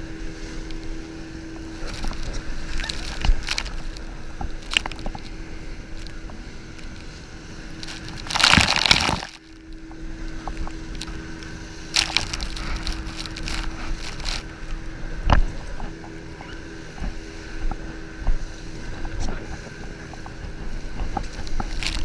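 Rushing water and spray around a banana boat being towed at speed, over the steady drone of the towing speedboat's engine, with scattered knocks. A louder rush of water hits about eight and a half seconds in, then the sound briefly dips.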